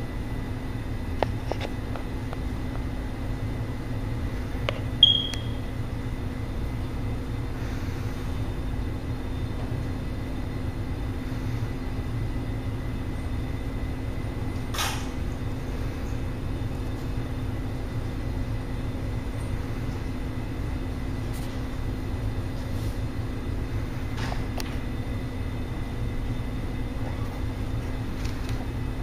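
Steady low machine hum throughout, with a short high-pitched squeak about five seconds in and a few faint clicks.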